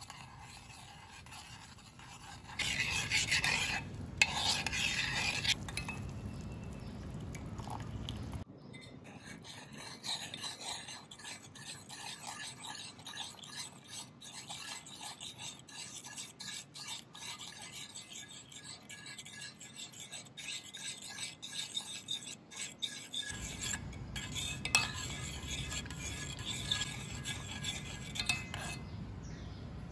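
Metal spoon stirring sugar syrup and scraping the bottom of a stainless steel saucepan, loudest a few seconds in.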